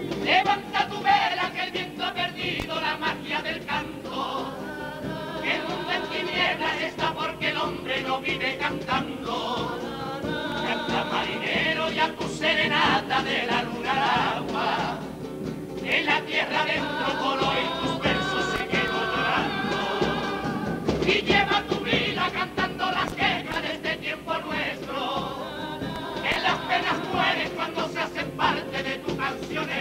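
Cádiz carnival comparsa, a male chorus, singing together to Spanish guitar accompaniment.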